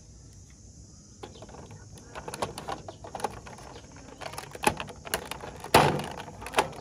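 Hard plastic clicks and knocks from a toy fire truck being handled as its side panel is worked open, a string of sharp clicks with the loudest knock near the end.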